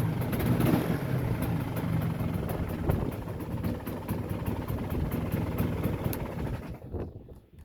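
Vintage Polaris 400 4x4 ATV's two-stroke engine running steadily, then cutting off about seven seconds in.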